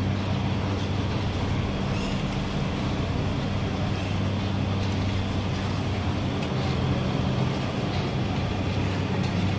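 Steady roar of a high-flame restaurant gas burner under a karahi, with a low hum throughout, while the curry sizzles and a steel spatula stirs and scrapes in the pan.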